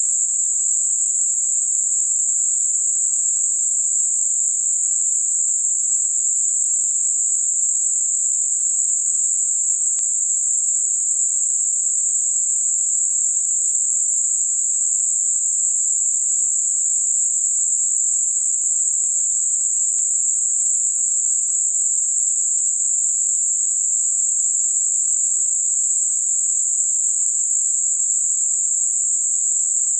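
Synthetic Gaussian narrow-band noise centred on 7.5 kHz, a tinnitus-masking signal: a steady, very high-pitched hiss with nothing in the low or middle range.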